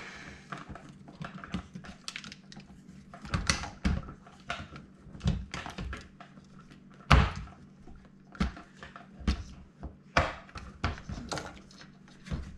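Irregular plastic knocks and clunks as a KitchenAid dishwasher's pump and motor assembly is wiggled and pried loose from its sump housing, with the loudest knock a little past halfway.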